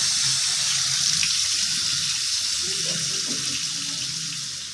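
Water from a shower hose running into a Daewoo Matiz radiator's inlet pipe and spilling into a bathtub, a steady hiss that fades near the end: the radiator being flushed.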